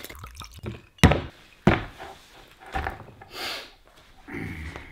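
A bottle of Kraken spiced dark rum being uncorked and handled: a sharp thunk about a second in, followed by a few softer knocks and a short rushing sound.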